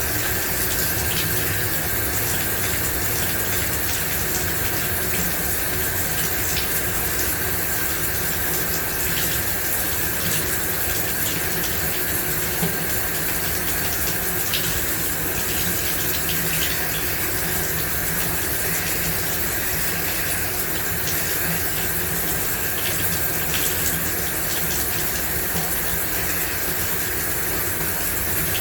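Shower running steadily, water spraying and splashing down in an even hiss with small patters of drops.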